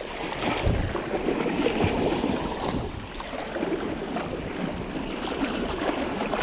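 Small sea waves sloshing and washing in and out among the boulders of a rock breakwater, with a couple of short low thuds of water in the first two seconds.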